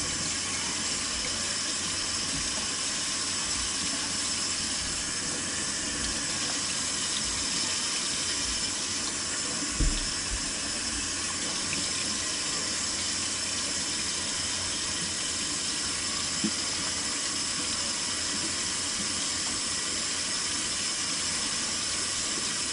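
Water tap running steadily into a sink, with a brief knock about ten seconds in and a lighter one a few seconds later.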